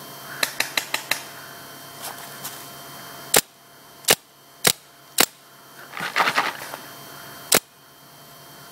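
Paintball markers firing: a quick string of about five pops, then loud single shots roughly every half second, a tight flurry of pops about six seconds in, and one last shot near the end.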